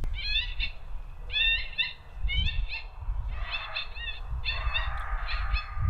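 Coyote vocalizations: short, high-pitched yips and yelps in quick clusters of three or four, repeating every second or so, over low wind rumble.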